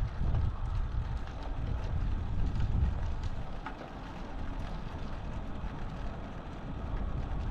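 Wind buffeting the microphone of a camera moving along a road, a gusty low rumble that eases off about halfway and builds again near the end.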